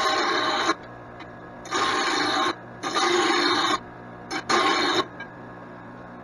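Grinder working the edge of a steel tractor mower blade in repeated passes. Each pass is about a second of harsh grinding, with short pauses between them, and the grinding stops about five seconds in.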